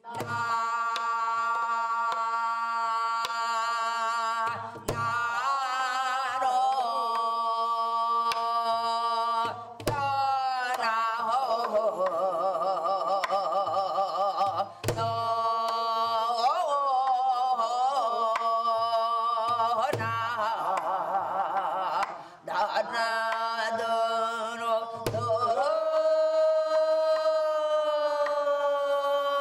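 Korean gueum (구음): a wordless vocal melody held on long notes with wide vibrato over a steady drone, with a deep drum stroke about every five seconds.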